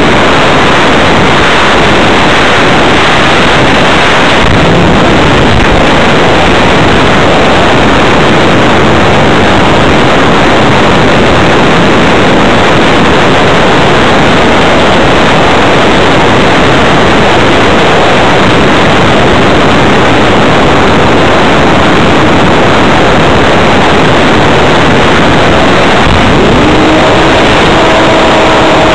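Loud, steady wind rush from airflow over the onboard camera of an RC flying-wing hotliner in flight. Near the end a steady electric motor whine comes in under the wind.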